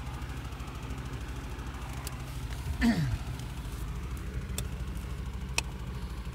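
A man's long sigh, falling in pitch, about three seconds in, over a steady low hum. Two sharp clicks follow near the end.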